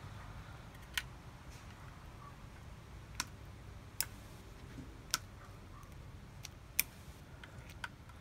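Small scissors snipping at cast-net line wrapped around a turtle's leg: six sharp clicks at uneven intervals over a faint low hum.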